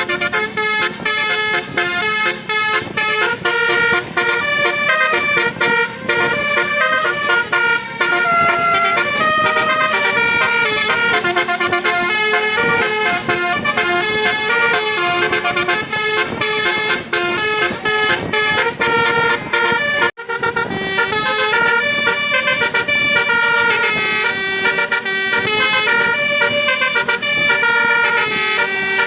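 Telolet Basuri musical horn on a tour bus, playing a quick tune of short notes that change pitch. The notes run on with a brief break about twenty seconds in.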